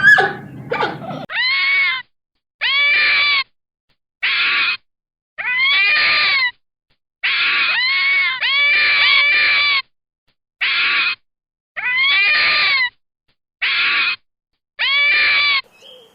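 An animal giving a series of about ten loud, drawn-out calls. Each call arches up and then falls in pitch and lasts under a second to about a second, and they are separated by abrupt silent gaps. A noisier, overlapping animal sound fills the first second.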